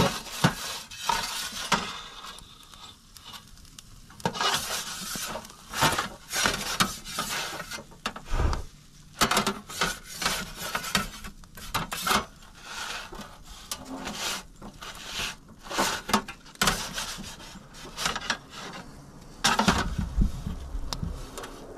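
Metal pizza turning peel scraping and clinking against the floor of a charcoal/wood-fired pizza oven as a pizza is slid onto it and turned, in many irregular scrapes and knocks.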